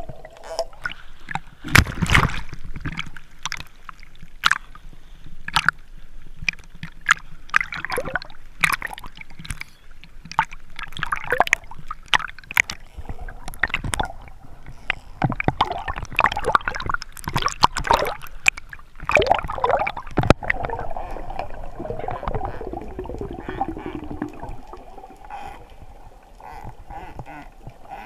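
Water gurgling and sloshing around a mask-mounted action camera's housing as a swimmer snorkels, with many sharp clicks and pops.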